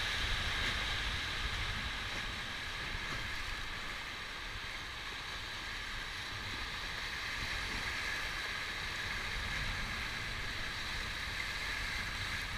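Whitewater river rapids rushing steadily past a raft, a constant churning water noise with a low rumble beneath it.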